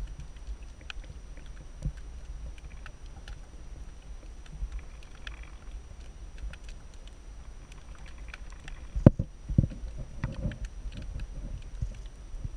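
Muffled water sound picked up by a camera held underwater: a steady low rumble with scattered faint clicks, and one sharp knock about nine seconds in followed by a few softer thumps.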